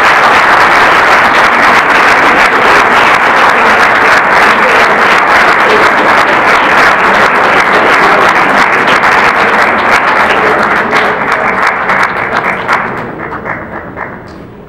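Audience applauding: dense, even clapping that thins into scattered separate claps and dies away near the end.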